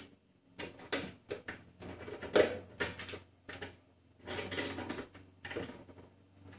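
Screwdriver working a tight machine screw out of a wooden piano music rack: a string of irregular clicks and scrapes, the sharpest a little over two seconds in. The screw is a machine screw fitted in place of the proper wood screw, which is why it turns out hard.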